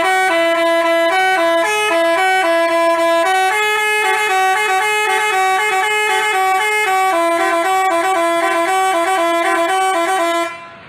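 Basuri 'telolet' multi-tone bus horn playing a fast melody of short stepped notes, two pitches an octave apart sounding together. It plays for about ten seconds and cuts off sharply just before the end.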